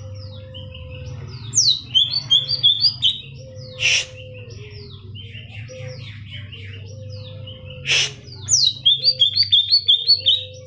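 Cucak ijo (greater green leafbird) singing a fast, varied song of high chirps and trills. Two loud harsh notes stand out about four and eight seconds in.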